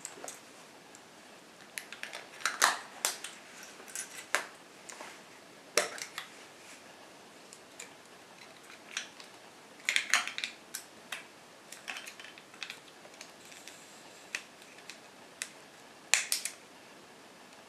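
Scattered sharp clicks and small knocks of hands working a Praktica Super TL 35mm film SLR: its back being opened and a film cassette seated and its leader pulled across for loading.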